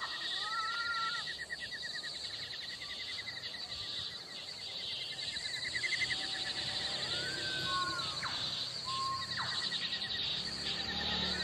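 Steady, fast-pulsing insect chirring, with a few drawn-out calls that rise and fall, one at the start, one about seven seconds in and one near the end, and a couple of short, quick downward chirps in between.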